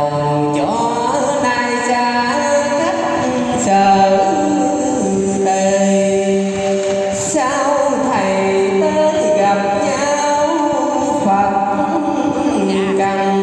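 A man chanting Hòa Hảo scripture verses in a sung, melodic style into a microphone, sliding between long held notes.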